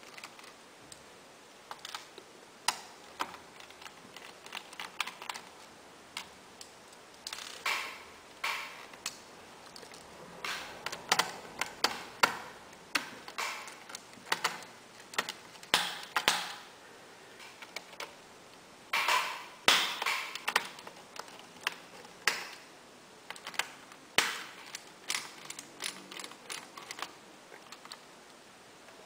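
Small screwdriver clicking and tapping on the metal screws of a laptop's processor heatsink as they are loosened, with irregular light clicks and a few short bursts of scraping and handling of small parts.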